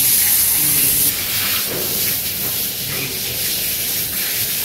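A steady high hiss, slightly louder in the first second.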